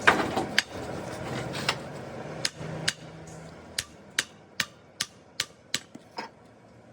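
Hammer blows on metal: a few uneven strikes, then a steady run of about seven blows at roughly two and a half a second, each a sharp knock.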